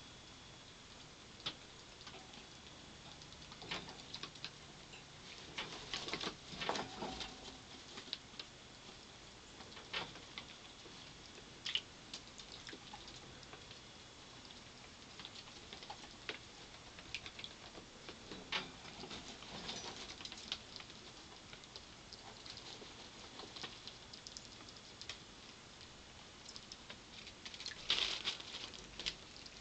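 Pet rats fishing peas out of a shallow bowl of water: scattered small splashes, patters and clicks as they dip in and eat, loudest near the end.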